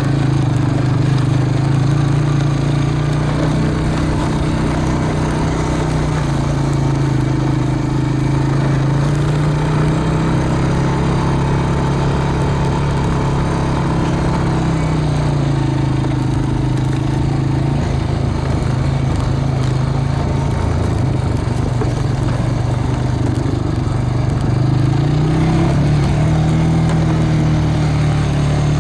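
An engine running steadily, its pitch sinking slowly around the middle and climbing again near the end as its speed changes.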